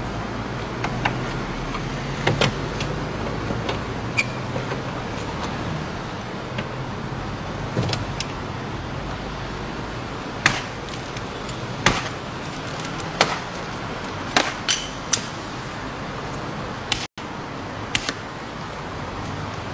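Repeated blows struck against a Mercedes-Benz S63 sedan's door panels and already shattered windows: about a dozen sharp knocks at irregular intervals, the hardest about ten and twelve seconds in, over a steady hum of street traffic.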